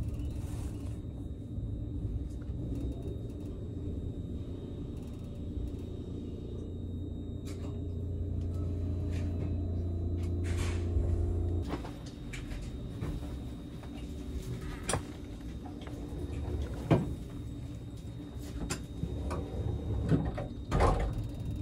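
Inside a JR Kyushu 787-series express car standing at a station platform. A steady low hum from the train's equipment cuts off suddenly about halfway through. Then come scattered knocks and thumps as passengers board.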